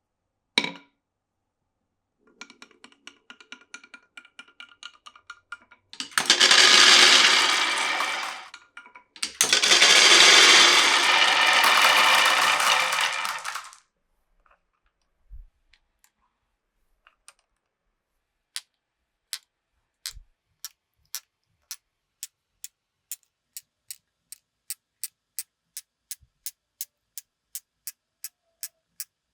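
Marbles running through a wooden and plastic marble run: a single click, a rattle of small clicks for a few seconds, then two loud rolling rushes of several seconds each. In the second half comes a long series of sharp, evenly spaced clicks, about two a second, slowly getting faster.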